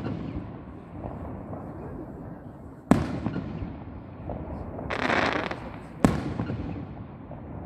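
Fireworks display: two sharp bursts about three seconds apart, about three and six seconds in, each echoing away. A short hissing crackle comes just before the second bang.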